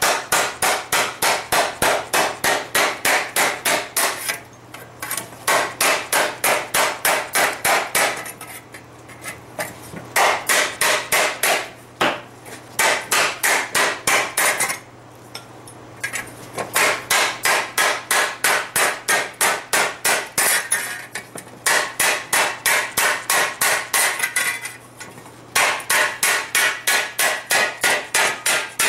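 Hand hammer striking a hot steel disc laid over a hollow in a wooden stump, dishing the blank into a frying-pan shape. Fast, even blows at about four a second, in runs broken by short pauses.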